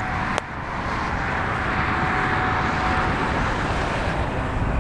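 Passing road traffic: a steady rush of tyre and engine noise that swells in the middle and eases off, with a single sharp click about half a second in.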